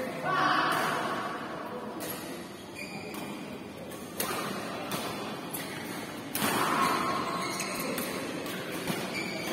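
Badminton rally in a large indoor hall: rackets strike the shuttlecock in sharp cracks a second or two apart, one of them a jump smash about four seconds in. Players' voices come in near the start and again around six seconds.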